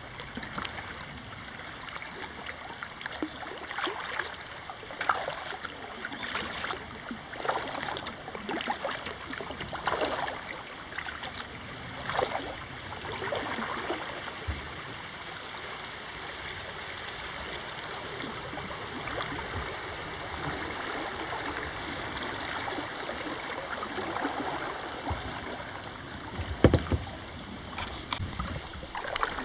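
Kayak paddle strokes splashing in river water every second or so over the steady rush of a rippling current, easing off in the middle, with a couple of loud thumps near the end.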